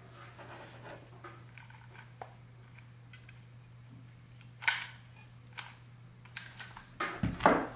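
Handling clicks and knocks of a hot glue gun loaded with sealing wax as it is brought to a ceramic plate and squeezes out a puddle of wax, with a sharp louder knock about five seconds in and a short cluster of louder knocks near the end, over a faint low hum.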